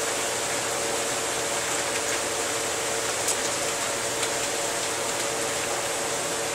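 Steady background hiss with a faint low hum, unchanging, and a single faint click about three seconds in.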